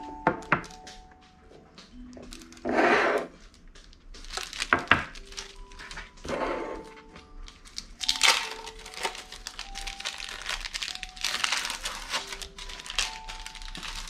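Plastic wrappers of individually wrapped cheese slices crinkling in several bouts as the slices are peeled out, with small clicks and knocks of handling.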